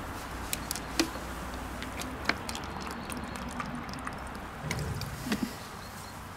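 Scattered light clicks and taps of a small cup being handled with wire coal tongs, over a low steady rumble.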